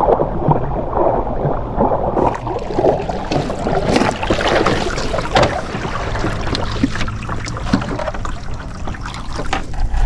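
Water splashing and trickling, with scattered small knocks, busiest in the first half.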